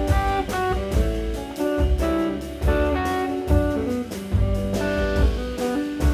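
Jazz quartet playing live: semi-hollow electric guitar playing a melodic line over double bass and drum kit, with cymbal and drum strokes keeping time.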